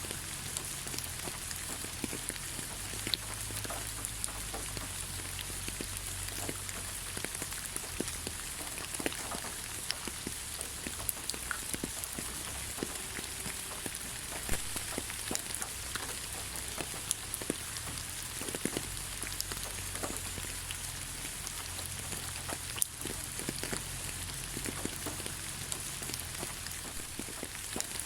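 Steady rain falling on the ground, an even hiss with scattered sharp drip ticks from individual drops, over a low rumble.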